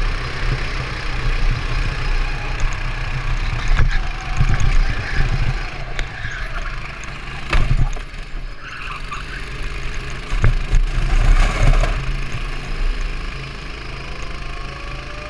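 Go-kart's small engine running under load during a race, heard from the kart with wind noise on the microphone, its sound dipping and picking up through the corners. Several sharp knocks come through over the run, and a rising engine tone is heard near the end.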